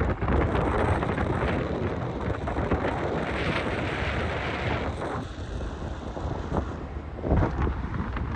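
Wind buffeting the microphone: a steady, uneven rumble heavy in the lows, with a brief hissier gust in the middle.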